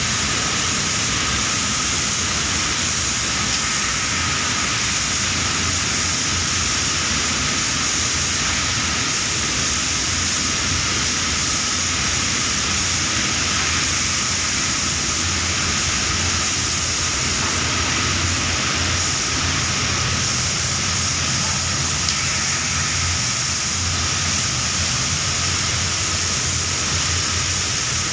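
Steady, loud hissing rush in a lacquer spray booth: a compressed-air spray gun spraying clear lacquer onto metal furniture frames, over the booth's running air and water.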